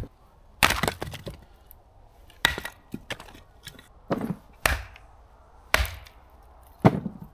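Two hatchets splitting firewood into kindling on log chopping blocks: about seven sharp chops at uneven intervals as the blades strike and split the wood.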